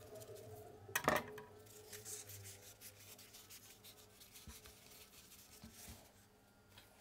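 Gloved hands handling an ice cream cup full of rolls, with rubbing and crinkling of gloves against the cup. A louder knock about a second in, and a few soft thumps near the end as the cup is set down on the steel ice-cream pan.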